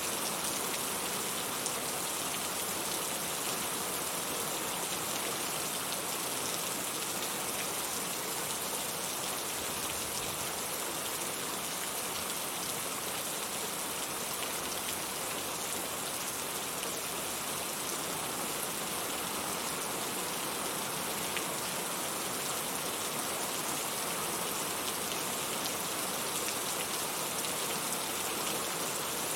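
Heavy rain falling steadily, an even hiss with scattered drop ticks and no let-up.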